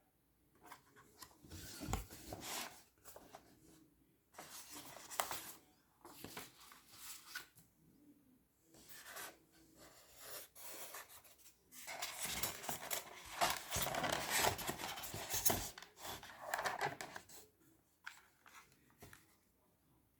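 Close handling noises: irregular rubbing and rustling with scattered clicks, heaviest in a long stretch past the middle, as a QGK PT92 airsoft pistol and its packaging are handled.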